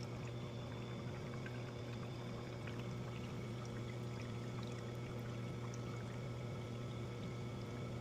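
Ice machine cleaner solution and water being poured steadily into the ice machine's water trough during its clean cycle, over a steady low hum.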